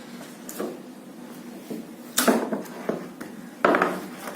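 Cardboard laptop packaging being handled and opened: a few short scrapes and knocks, the loudest two about two and three and a half seconds in.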